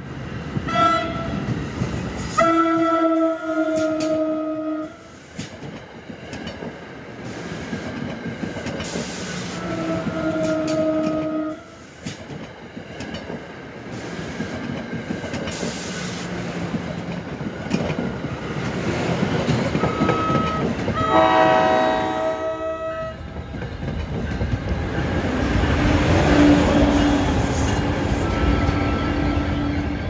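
An NJ Transit ALP-45DP locomotive sounds its horn as it approaches: a short toot, two long blasts, then a short blast followed by a long one. Under the horn, the train's rumble and rail noise grow steadily louder as the locomotive and bilevel coaches roll past close by.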